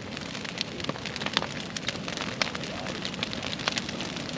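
Large bonfire of fallen branches and timber burning steadily, with a continuous rushing hiss and frequent irregular sharp crackles and pops as the wood burns.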